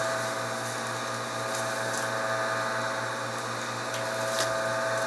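Steady hum of an electric motor or machine running, with a few faint ticks near the end.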